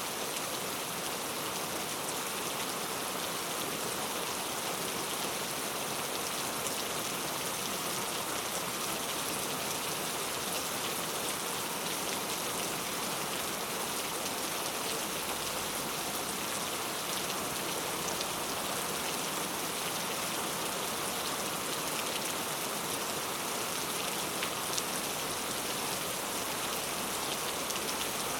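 Heavy rain falling steadily, a dense even hiss of drops striking hard surfaces, with scattered individual drop ticks.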